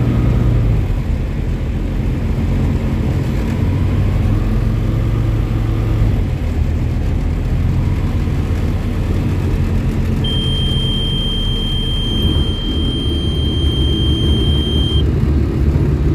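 Tecnam P2002 light aircraft's Rotax 912 engine running at idle while the plane rolls out and taxis after landing, a steady drone from inside the cockpit whose pitch shifts slightly a couple of times. About ten seconds in, a steady high beep sounds for about five seconds and cuts off.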